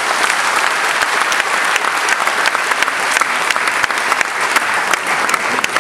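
Audience applause: many hands clapping steadily and densely.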